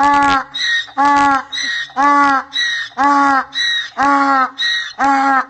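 Donkey braying in a long run of hee-haws, about one a second: a short, high wheezy 'hee' between each loud, lower 'haw'.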